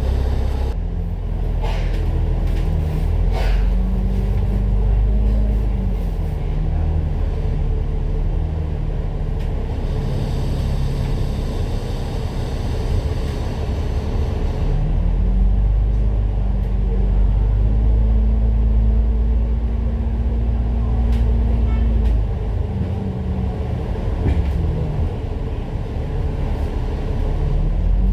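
Citybus bus in service, its diesel engine running under a steady deep rumble, the engine note climbing and dropping several times as the bus accelerates, changes gear and eases off.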